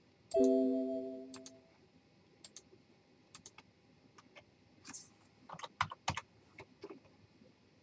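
A Windows system alert chime rings once, about half a second in, as a crash-restore dialog pops up, and dies away over about a second. After it come scattered mouse clicks and a few computer keyboard keystrokes as a file name is typed.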